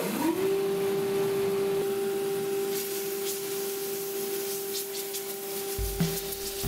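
Stroke sander switched on: its motor winds up in pitch over about half a second, then runs at a steady hum with the belt running. About six seconds in a deeper rumble comes in.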